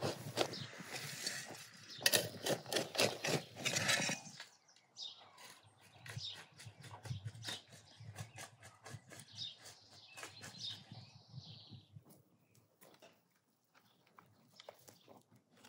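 Steel shovel cutting into dry, stony garden soil, with rough crunching and scraping strokes for the first four seconds, then quieter scattered scrapes of soil.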